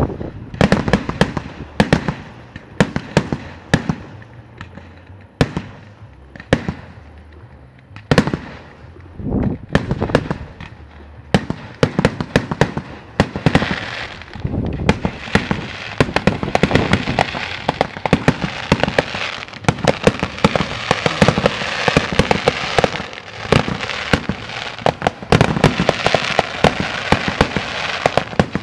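Aerial fireworks shells bursting, with sharp bangs coming every second or so. About halfway through, a dense crackling of many small reports builds up and carries on under continuing bangs.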